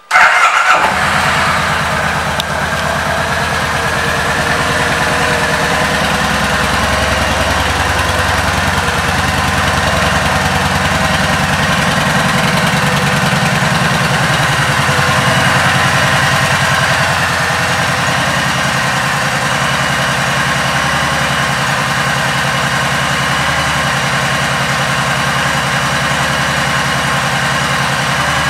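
Kawasaki Vulcan 1700 Voyager's 1,700 cc V-twin engine firing up suddenly, flaring briefly, then settling into a steady idle.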